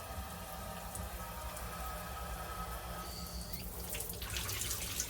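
Water running from a shower and draining in a small bathroom, a steady hiss over a low hum.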